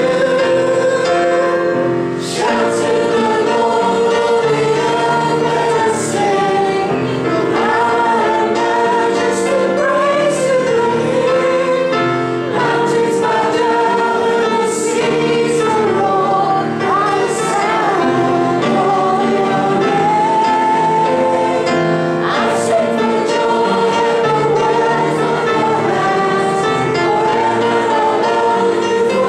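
Congregation singing a worship song together with keyboard accompaniment, the singing going on without a break and moving from the verse into the chorus partway through.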